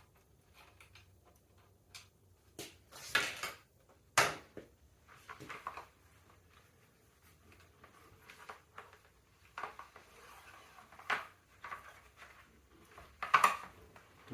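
Intermittent clicks, clinks and clatters of bike parts and tools being handled during assembly of an e-bike's front fender, with a short rattle about three seconds in and sharp knocks about four seconds in and near the end.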